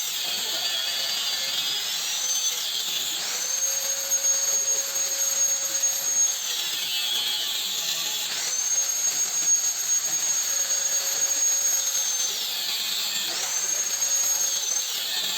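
Angle grinder cutting through a rusted stabilizer link whose seized thread will not come loose. Its high whine sags in pitch as the disc bites into the metal and climbs back as it eases off, about three times, with a gritty hiss while it cuts.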